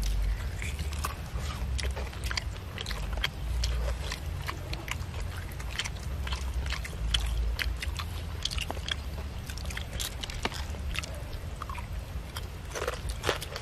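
Biting into and chewing crispy fried chicken: a run of crunchy crackles, over a steady low rumble.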